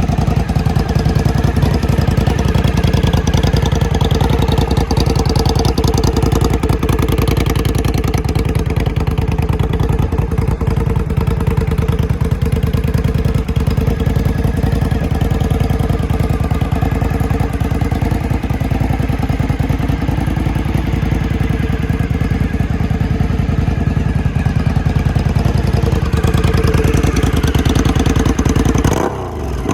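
Suzuki TL1000S's V-twin engine idling steadily; the sound drops away near the end.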